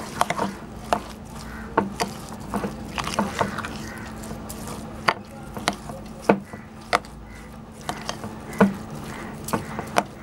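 Metal spoon stirring sugar into thick hung curd in a glass bowl, clinking and scraping against the glass at irregular moments, over a low steady hum.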